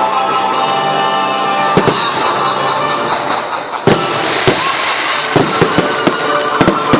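Fireworks going off, a series of sharp bangs that come thicker in the second half, over loud show music.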